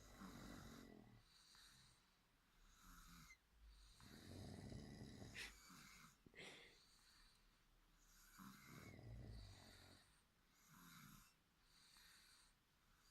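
Two sleepers snoring faintly, taking turns: a deep, rumbling snore about every four to five seconds and a lighter, higher snore in between. Two short clicks come about five and six seconds in.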